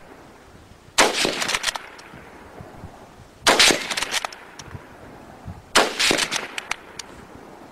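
Three bursts of rapid gunfire a couple of seconds apart. Each burst is several shots in quick succession, and each echoes off the surrounding buildings before dying away.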